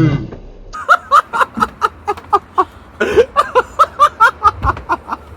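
A person laughing hard: a rapid run of short "ha" bursts, about four or five a second, in two bouts with a brief pause between them.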